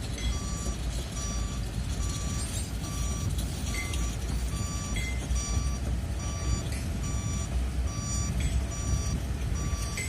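Backup alarm of a heavy construction machine beeping steadily, a short tone a little more than once a second, over the low rumble of a diesel engine running.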